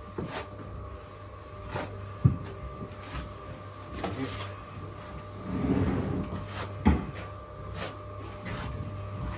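Plastering trowel scraping excess plaster off the wall and wiping it off onto a plasterer's board, with scattered light taps and scrapes and two sharper knocks.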